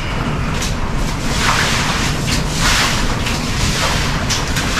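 Broom swishing standing water across a wet floor several times, over a steady rush of heavy rain.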